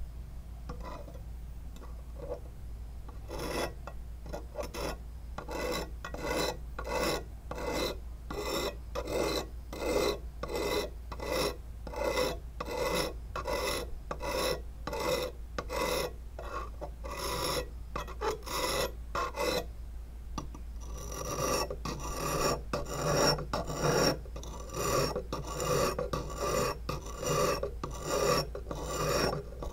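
Sharpening stone rubbed back and forth along the hooked steel blade of a rubber-tapping knife, steel scraping on stone in even strokes of about two a second, dressing the tip of a new knife. The strokes begin a few seconds in, pause briefly past the middle, then resume brighter and harsher.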